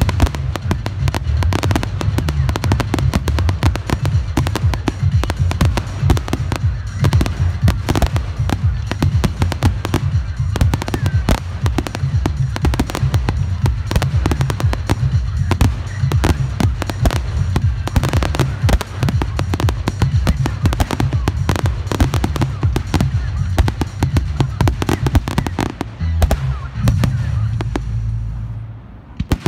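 A dense, nearly continuous barrage of firework shells bursting and crackling, many overlapping reports with a heavy low rumble beneath. It thins out and drops in loudness near the end.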